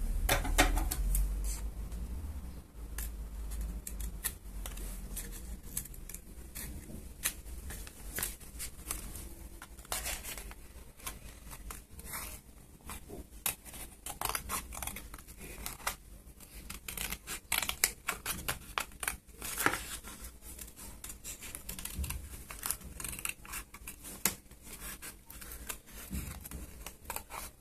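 Scissors snipping through paper in irregular cuts, with paper rustling and handling noises between the snips.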